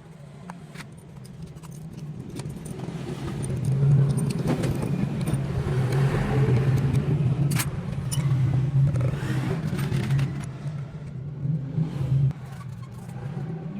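An engine running with a steady low hum that grows louder about four seconds in and eases off near the end, with scattered metallic clinks.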